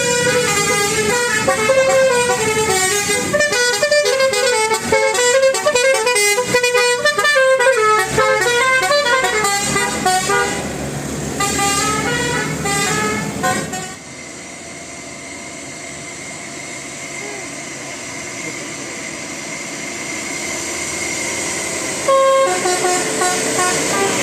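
Multi-tone 'telolet basuri' bus horn playing rapid, melodic runs of notes, which cut off suddenly about fourteen seconds in. Steady vehicle running noise follows and slowly grows louder, and then the horn tune starts again near the end.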